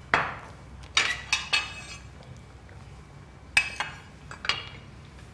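Metal cooking utensils clinking against a cooking pot: about six sharp clinks spread over a few seconds, each with a brief metallic ring.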